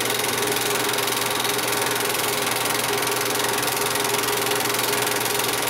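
8mm film projector running steadily, a constant mechanical whir with a steady hum.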